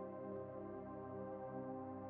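Soft ambient background music of sustained, slowly shifting synthesizer-like tones.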